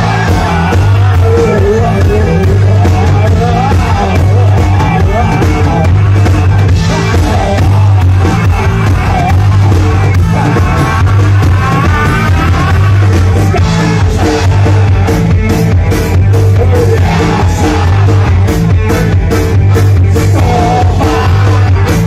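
Live folk-rock band playing loudly: piano accordion, electric guitar, bass guitar and drums, with a male voice shouting or singing at times over the accordion. Sharp cymbal strokes come through more thickly in the second half.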